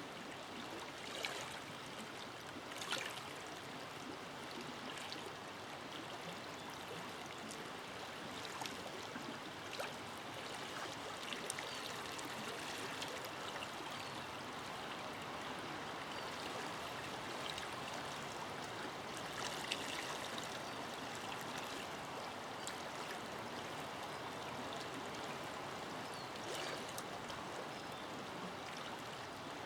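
A forest river flowing steadily, water rushing and trickling over stones, with brief brighter splashes now and then.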